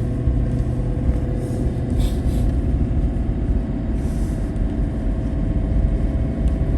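Steady engine and road rumble of a vehicle being driven, heard from inside its cabin.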